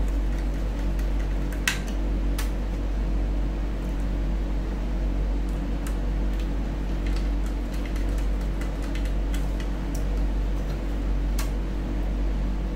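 Steady mechanical hum, like a running fan, with scattered small clicks and taps of hardware being handled as an SSD is unpacked and fitted into a laptop's drive bay. The sharpest clicks come about two seconds in and again near the end.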